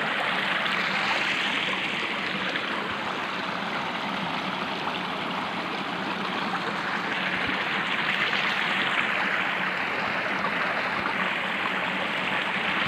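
Shallow rocky river flowing over stones: a steady, even rush of water.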